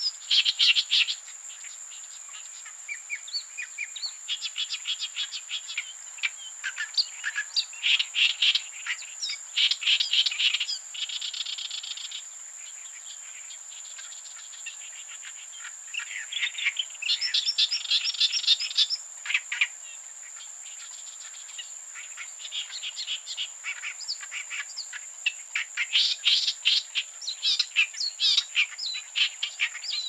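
Birds chirping and calling in several bursts of rapid repeated notes, loudest near the start, around the middle and near the end. A steady, high-pitched insect drone runs underneath.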